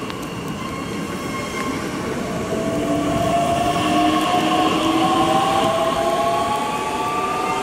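Bombardier Talent 2 electric multiple unit pulling away and accelerating. The whine of its traction drive climbs steadily in pitch in several tones at once, over a rumble of wheels on rail. It grows loudest about halfway through.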